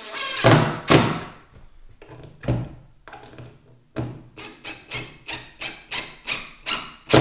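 Cordless impact driver driving a long screw through a wooden mantel into the wall framing, its hammer mechanism striking in sharp knocks: a few separate hits, then an even run of about three knocks a second.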